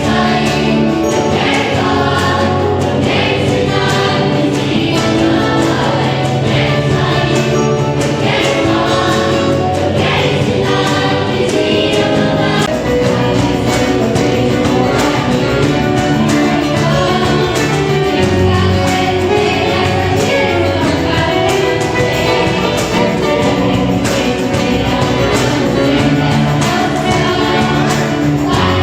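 Choir singing a song with instrumental accompaniment.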